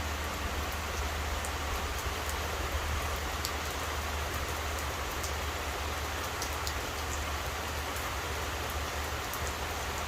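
Steady rain falling, with scattered drops ticking sharply and a steady low rumble underneath.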